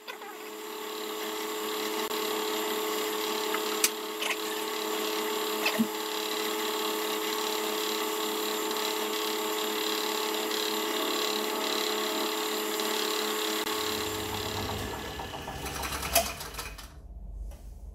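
Wood lathe motor starting up and running at a steady whine, with a few light knocks, then switched off and winding down near the end.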